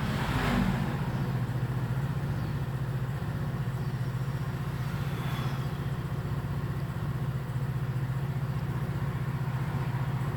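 Steady low mechanical hum with a fine rapid pulse, and a brief rush of noise about half a second in.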